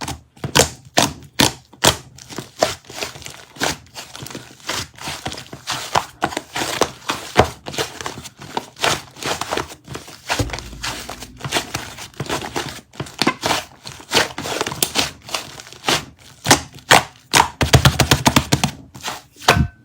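Lavender and white shaving-foam slime being squished and pressed by hand, giving irregular crackling, popping clicks that come in dense runs.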